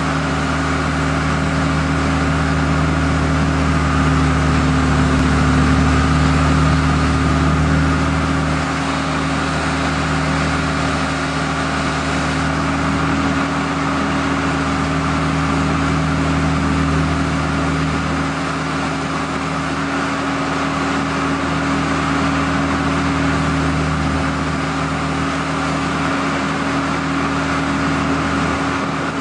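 NPK C4-C excavator-mounted hydraulic plate compactor vibrating as it drives a pole into the ground: a steady mechanical drone over the carrier's running engine. The deepest part of the hum drops and returns in level several times.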